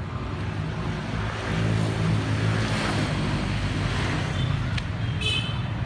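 Street traffic: a motor vehicle's engine hum and tyre noise swell as it runs past close by, over a steady rushing background.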